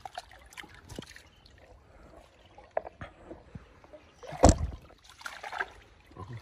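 Muddy pond water sloshing and splashing while a net is handled in it, with small clicks and rustles. There is one loud thump about four and a half seconds in.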